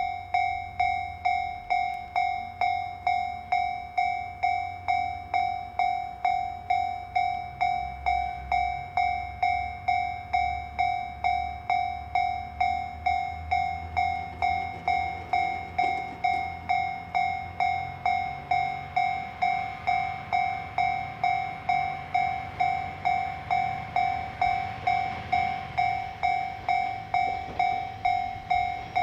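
Japanese level-crossing warning bell ringing its steady electronic two-tone clang about twice a second, each stroke fading fast. Under it is the low rumble of the Mizukaze diesel-electric train moving slowly during shunting.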